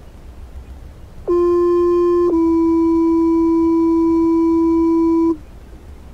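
Two-tone sequential fire-department paging tones received on a handheld scanner radio. A one-second tone is followed by a slightly lower three-second tone, which cuts off sharply. These are the alert tones that set off the firefighters' pagers ahead of the voice dispatch.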